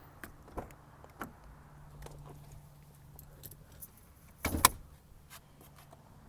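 Small clicks and rattles as the 2023 Lexus IS 350's hood release is worked, then one loud thunk about four and a half seconds in as the hood latch pops, over a low steady hum.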